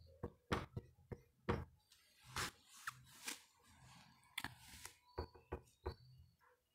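Faint whiteboard marker writing: short scratchy strokes and light taps of the marker tip on the board, scattered irregularly.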